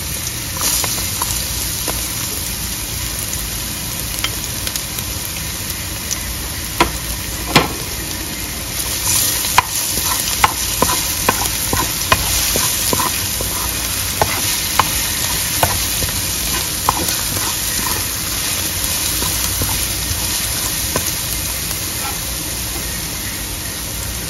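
Minced garlic sizzling in hot oil in a stainless steel pan, a steady hiss. Between about seven and seventeen seconds in, a wooden spatula stirring it knocks and scrapes against the pan in a string of sharp taps.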